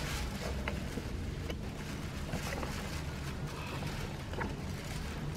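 Steady low rumble with light rustling and a few faint clicks as a towel rubs over a baby monkey's fur.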